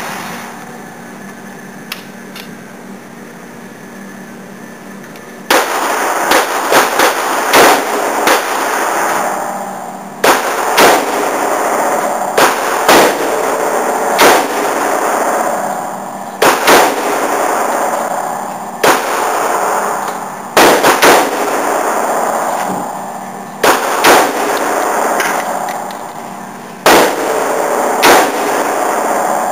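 AR-15 rifle fired semi-automatically, each shot echoing and fading slowly off the range walls. After about five quieter seconds with one faint click, some two dozen shots follow, some single and some in quick pairs and triples a fraction of a second apart.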